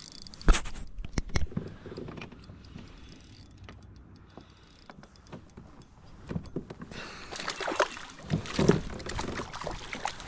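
Handling noise on a fishing kayak while a hooked lake trout is reeled in: a few sharp knocks early on, a quieter stretch, then a busier spell of knocks and rustling over the last three seconds as the fish comes to the boat.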